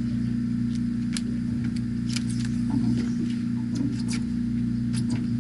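Fishing boat's engine running steadily with a low hum, with scattered light clicks and taps on top.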